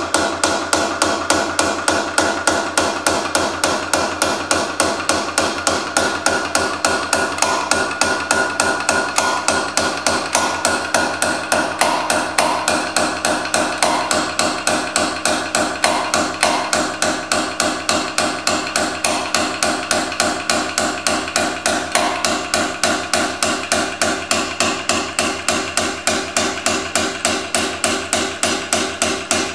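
Hammer striking a hand punch on the steel blank of a wood rasp in a rapid, even rhythm of sharp metallic taps, with the steel ringing faintly between blows: hand-stitching, raising the rasp's teeth one blow at a time.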